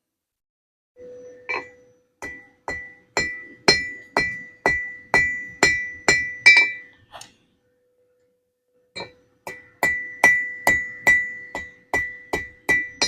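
Ball peen hammer striking hot steel on an anvil, spreading and drawing out a stone-carving chisel: steady blows about two a second, each ringing, in two runs with a short pause between them.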